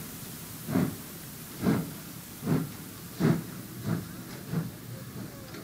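DB Class 41 steam locomotive 41 018, a two-cylinder 2-8-2, starting away: six exhaust chuffs that come quicker as it gathers speed and weaken toward the end, over a steady hiss.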